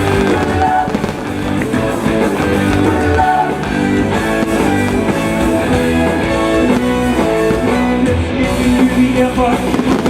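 Live rock band playing a loud, steady electric-guitar-driven rock song.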